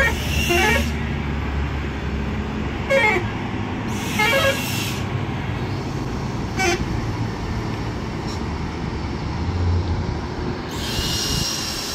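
Heavy diesel trucks running in low gear up a mountain grade, a steady low engine drone. Over it come several short horn toots, and a longer horn blast near the end.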